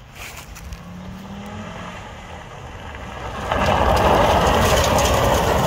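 A car engine rising in pitch as it comes closer. From about three and a half seconds in there is a loud rush of tyres sliding and spraying gravel under the running engine, as the car slides through a handbrake turn on a gravel road.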